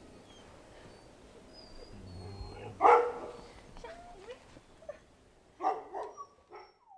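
Siberian huskies barking: one loud bark about three seconds in and a short run of barks near the end, with faint whimpers between.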